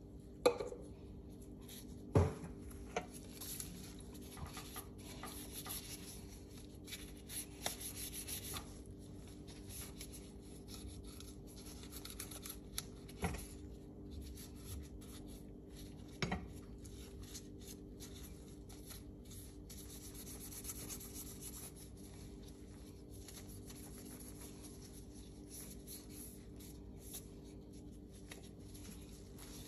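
Cloth patch rubbing and wiping against a steel pistol frame, with a few sharp knocks as the frame is handled, the loudest in the first few seconds.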